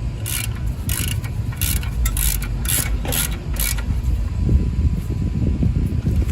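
Hand socket ratchet working a bolt in a run of quick strokes, clicking several times over about three seconds before stopping. Low rumbling handling noise follows.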